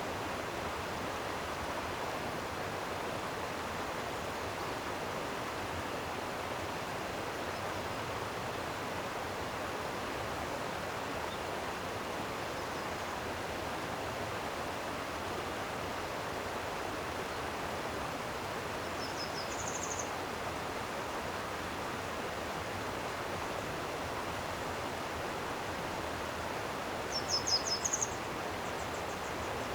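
Steady rush of a flowing stream. A small bird chirps briefly twice, about two-thirds of the way in and again near the end as a quick run of high notes.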